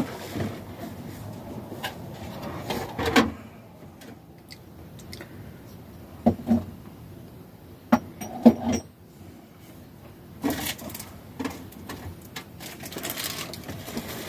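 Household handling noises: scattered knocks and clicks of things being moved and set down, with a plastic bag rustling near the end.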